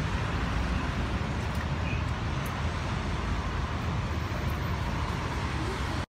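Steady street traffic noise, a low rumble with hiss and no distinct events, cutting off suddenly at the very end.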